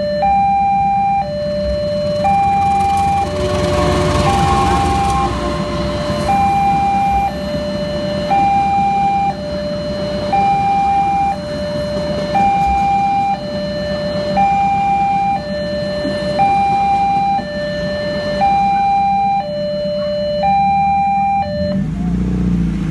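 Railway level-crossing alarm sounding a steady electronic two-tone signal, high and low tones alternating about once a second, while a passenger train rumbles through the crossing. The alarm cuts off near the end as the barriers lift, and vehicle engines start up.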